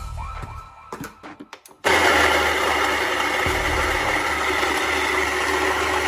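Vario burr coffee grinder's motor switched on and running steadily, starting abruptly about two seconds in after a few light clicks. The motor drives the burrs properly now that the drive gear's grub screw is refitted and the gear no longer slips on the shaft.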